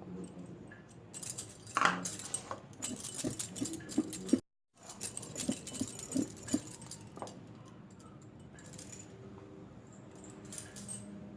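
Light metallic clinks and rattles of kitchen utensils against a bowl, scattered and irregular for the first several seconds, then quieter.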